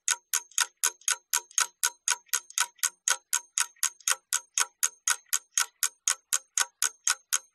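Clock ticking steadily, about four ticks a second: a timer sound effect counting off the time given to do an exercise.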